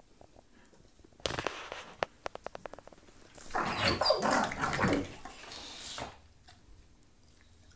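Two dogs play-fighting over a toy, growling and snarling at each other. A quick run of about ten clicks comes around two seconds in, and the loudest snarling comes from about three and a half to six seconds in.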